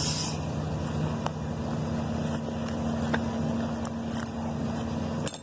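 Machinery running with a steady hum and two held tones; it cuts off suddenly near the end.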